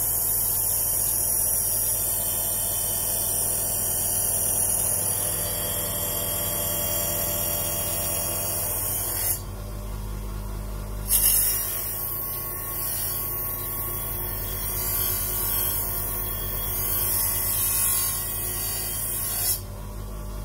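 8-inch bench grinder running with a non-woven polishing mop: a steady motor hum under the hiss of a metal armour piece being polished on the mop. About nine seconds in the hiss drops away for a couple of seconds as the piece comes off the wheel, then returns with a sharp, louder bite as it goes back on; another brief bite comes near the end.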